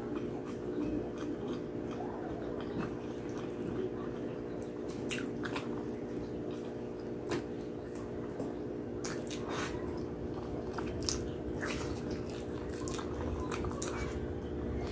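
Close-miked biting and chewing of braised pork hock and rice: wet lip smacks and sticky clicks of gelatinous skin, over a steady low hum.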